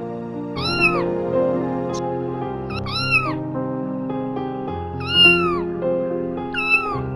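Domestic cat meowing four times, each meow about half a second long, rising then falling in pitch, over background music.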